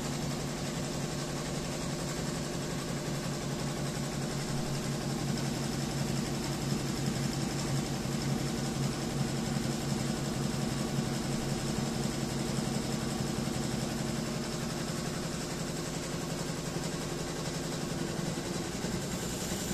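Wonyo WY1201CM single-head, 12-needle embroidery machine running and stitching, a steady mechanical sound made of fast, even needle strokes.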